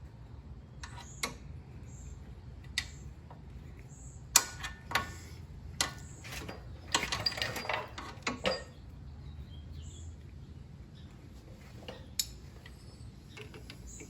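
Metal hand tools and a brake-hose fitting clinking as the new front brake hose is worked into place. The sharp clicks come one at a time, with a denser rattling stretch a little past the middle.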